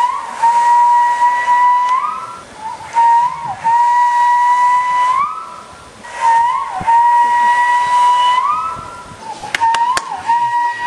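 Male walrus whistling in its mating-season display: four long, steady whistles of about two seconds each, each opening with a short dip in pitch and ending in a quick upward sweep, with about a second's pause between them. A few sharp clicks come around the start of the last whistle.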